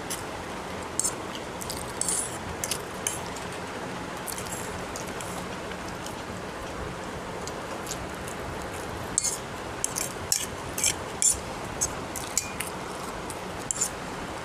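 Eating sounds: a fork clinking and scraping on a plate and mouth noises from chewing noodles, a string of short sharp clicks and smacks that come thickest a little past the middle, over a steady hiss.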